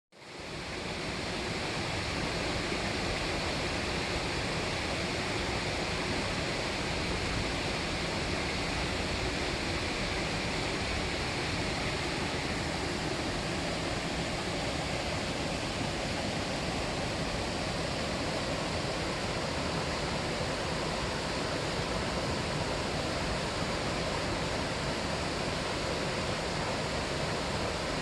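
Flowing mountain water rushing steadily, an even hiss and rumble without let-up, fading in over the first second.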